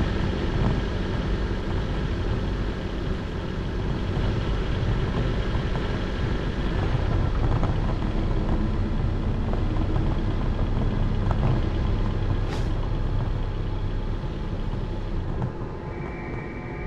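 Steady mechanical running noise, like a large engine or machine, with a brief sharp hiss about twelve seconds in and a steady high-pitched whine starting near the end.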